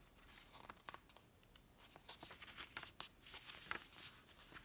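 Paper pages of a paperback picture book rustling and crinkling faintly as a page is turned, with scattered small crackles.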